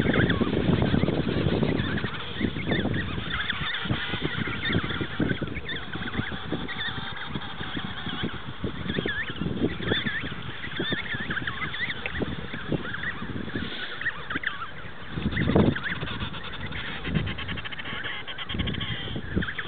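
Emperor penguin colony calling: many short, high, overlapping calls from the chicks and adults, over bursts of low rumbling noise, loudest at the start and about fifteen seconds in.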